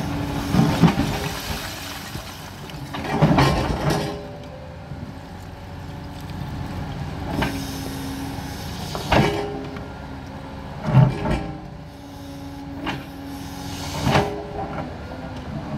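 Liebherr 946 tracked excavator running steadily, its engine and hydraulics humming, while the steel bucket scrapes and crashes through brick rubble. There are about six loud scraping crashes spaced a couple of seconds apart, the biggest ones near the start and around three to four seconds in.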